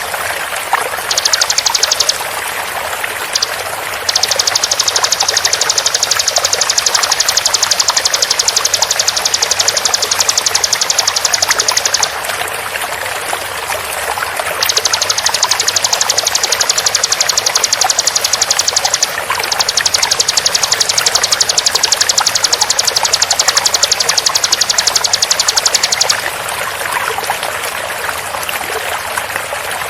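Bar-winged prinia (ciblek) singing very fast, high, rapid-fire trills in long bouts of several seconds with short breaks between them, over the steady rush of flowing water.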